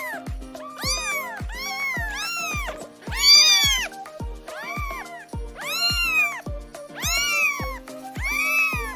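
A cat meowing again and again, about eight drawn-out meows that rise and fall in pitch; the loudest and highest comes about three seconds in. Under the meows is music with a steady beat of about two thumps a second and a held chord.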